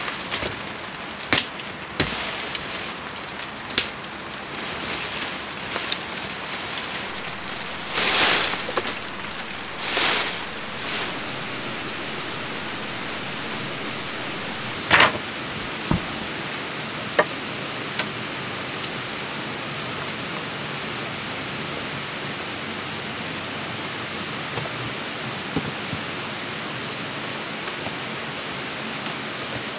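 Stream water running steadily, with scattered knocks and rustling over the first half and a quickening run of short high chirps about halfway through.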